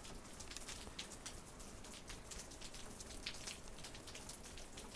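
Meltwater from thawing snow dripping in a faint, irregular patter.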